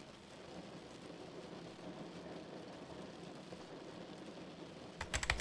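Low, steady heavy rain falling on a car roof, a rain sound-effect bed. Just before the end, fast computer-keyboard typing starts in quick clicks.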